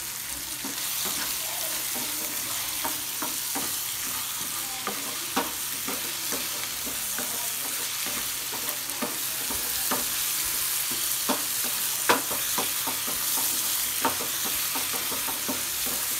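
Chopped tomatoes, peanuts, garlic and dried red chillies sizzling in hot oil in a frying pan while a wooden spatula stirs them, scraping and knocking against the pan at irregular moments; the sharpest knock comes about twelve seconds in.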